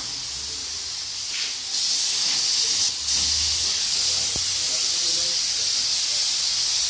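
Compressed-air gravity-feed spray gun hissing steadily as it sprays clear varnish onto a headlight lens; the hiss gets louder about two seconds in.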